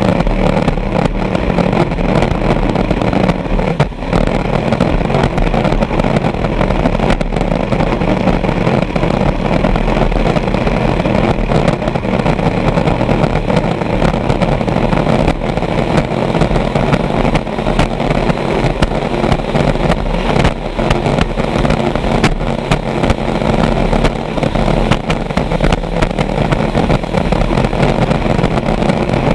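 Vintage racing hydroplane's engine running steadily at speed, heard on board, mixed with rushing wind and water noise.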